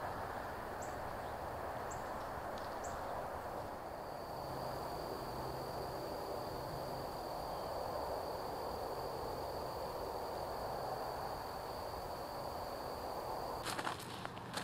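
Woodland ambience over a steady background hiss. A thin, high, steady insect trill starts about four seconds in. Near the start there are three short high chirps about a second apart, and footsteps crunch on the trail near the end.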